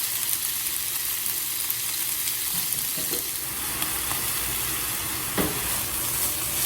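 Diced chicken breast sizzling in hot sesame oil in a pan, a steady high hiss, with a sharp knock about five seconds in.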